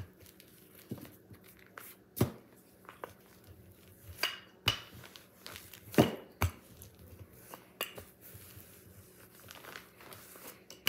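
Scattered knocks and clicks from dough being worked with a wooden rolling pin on a counter, the loudest about two seconds in and about six seconds in.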